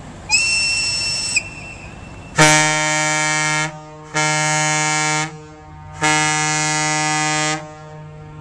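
A high-pitched horn toots once for about a second. Then a deep tugboat horn sounds three long blasts, each lasting a second or more.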